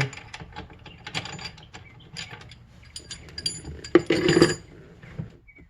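Socket ratchet clicking in quick, uneven strokes as it turns the bolt of a steering wheel puller, then a louder metal clatter about four seconds in.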